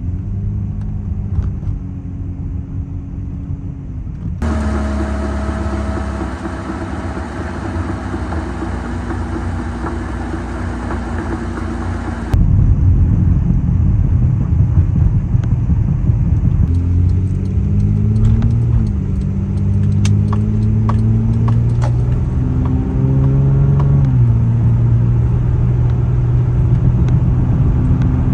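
A car driving: the engine climbs in pitch as it accelerates and then drops back, several times, over a steady low rumble of road noise. It changes abruptly twice, about 4 and 12 seconds in.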